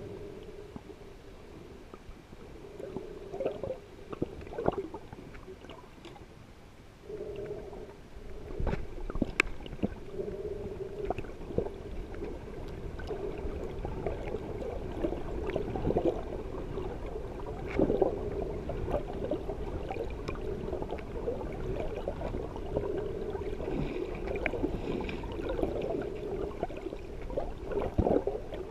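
Muffled underwater sound of water moving around a submerged camera: gurgling and sloshing with many short clicks and knocks over a steady low hum, which grows louder about seven seconds in.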